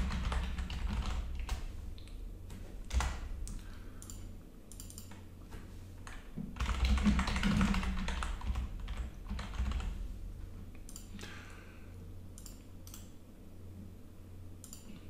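Typing on a computer keyboard: irregular clicking keystrokes, with a denser, louder run about seven seconds in.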